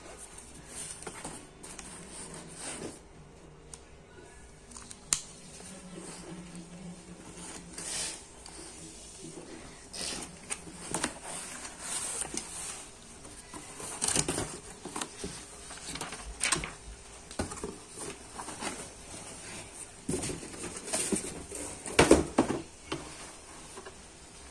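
Cardboard shipping box being handled and opened by hand: irregular rustles, scrapes and knocks of cardboard and packing tape, loudest a little past halfway and again near the end as a shoebox is lifted out.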